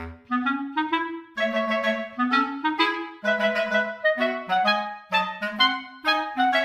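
Background music: a light, bouncy melody on a clarinet-like woodwind, played in short separate notes several to the second.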